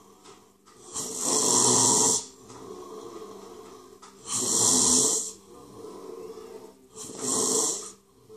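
A person breathing heavily in loud, rasping gasps: three long, harsh breaths about three seconds apart, with quieter breathing between them.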